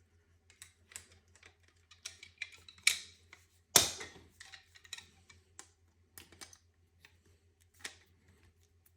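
Irregular small clicks and light knocks of a fuel injector being handled and worked into a fuel rail, with one sharper knock about four seconds in.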